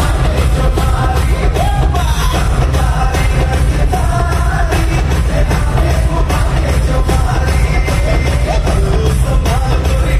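Loud live Bollywood concert music over an arena sound system, with heavy bass, a steady beat and a sung melody.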